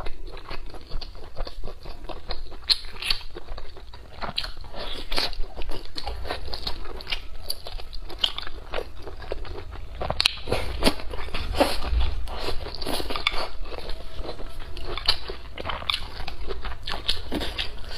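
A person chewing and biting food right at a clip-on lapel microphone, a steady run of irregular small clicks and crunches.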